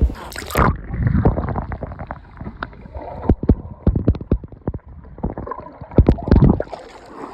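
Underwater sound in a swimming pool, heard muffled through the water: gurgling and bubbling with repeated dull knocks and splashes as a swimmer moves past.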